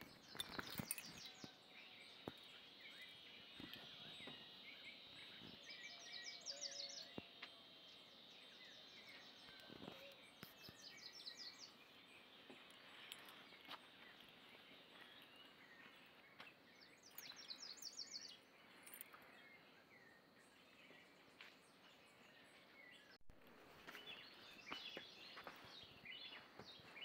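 Faint dawn chorus of birds singing: scattered chirps and calls, with short rapid high trills that recur every few seconds. The sound cuts off about 23 seconds in, and denser chirping follows.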